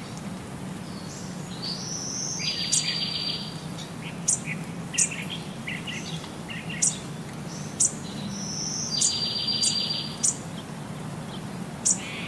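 Songbird chirps and twitters: a rising note into a buzzy trill, heard about two and a half seconds in and again about six seconds later, with sharp single chirps scattered between, over a steady low hum.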